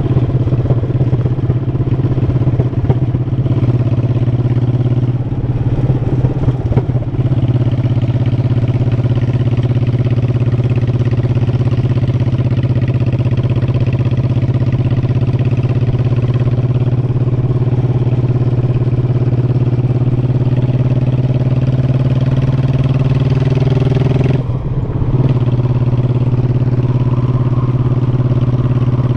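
Honda Shadow Sabre 1100 V-twin motorcycle engine running steadily under way. The engine sound dips briefly about three-quarters of the way through, then picks up again.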